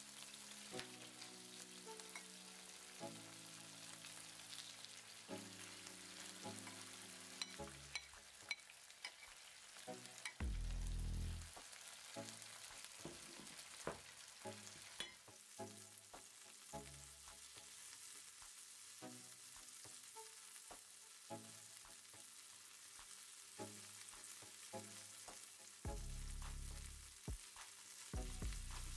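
Marinated chicken pieces frying in hot oil in a pan: a steady sizzle, with scattered clicks and scrapes of a utensil turning them.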